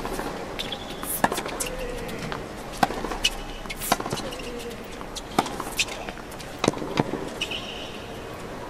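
Tennis rally on a hard court: sharp pops of racket strikes and ball bounces every second or so, with shoe squeaks and a low crowd murmur.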